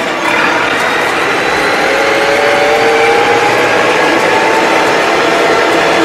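Massey Ferguson tractor driving on the road at speed, heard from inside its cab: a steady engine and drivetrain drone with a faint whine over it.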